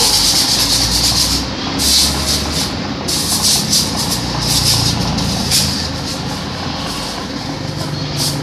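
Compressed-air blow gun blasting a motorcycle part clean in several bursts of hiss of varying length, the bursts weakening in the second half. A steady low hum runs underneath.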